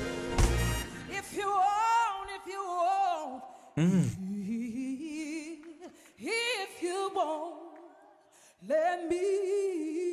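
A woman singing solo in a soul ballad style, with long melismatic runs and vibrato on held notes and little or no backing. Near the end she holds a long note with vibrato.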